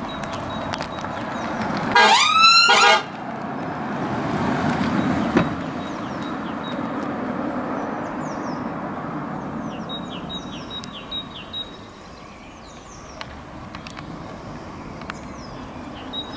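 Police car siren giving one short rising whoop of about a second, followed by the electric car's tyres swishing past as it drives away. Birds chirp in the background later on.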